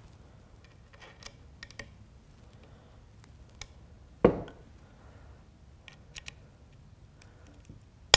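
Small metal clicks and light knocks of parts being handled while the magazine release is fitted into a wooden rifle stock, with one louder knock about halfway through.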